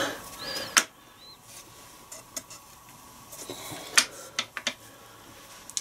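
Metal clinks and taps from hand tools and steel gearbox parts being handled on an opened R380 gearbox. There is a sharp clink under a second in, another about four seconds in followed by a few lighter taps, and faint ticks between them.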